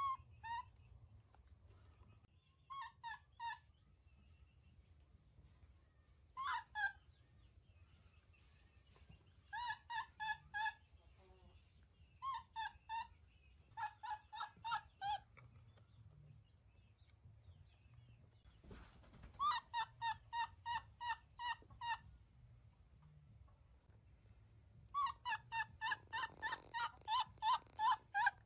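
Baby monkey calling in series of short, high, repeated cries, about three or four a second, in groups of two to eight with pauses between, the longest series near the end.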